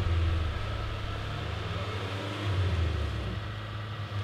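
Off-road 4x4 engines idling, a low rumble that swells and fades.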